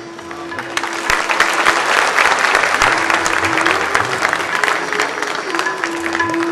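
Audience applause that swells about a second in and eases off near the end, over background music with a steady held note.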